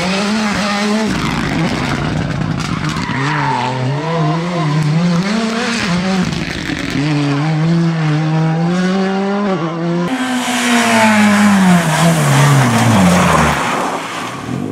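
Rally car engine at high revs, its note rising and dropping with throttle and gear changes. About ten seconds in a louder rush of noise sets in and the engine note falls steadily over the last few seconds.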